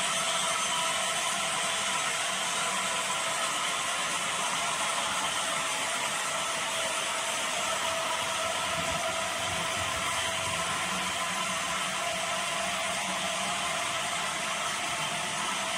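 HO scale model freight train of tank cars rolling along the layout's track: a steady mechanical rolling noise from the metal wheels on the rails.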